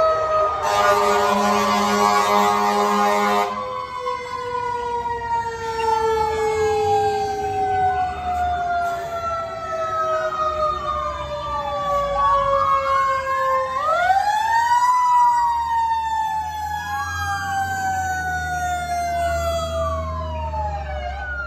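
Fire engine sirens: one siren tone winding slowly down in pitch and spun back up about 14 seconds in, under a second siren wailing up and down every couple of seconds. A loud air horn blast sounds for about three seconds near the start, and a diesel engine rumble comes in over the last several seconds as the engine passes close.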